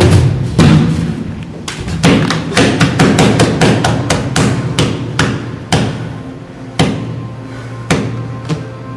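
Percussive dance-score music: sharp, irregular thuds and knocks over a low steady hum. The knocks come thick at first and thin out toward the end, while faint sustained tones come in.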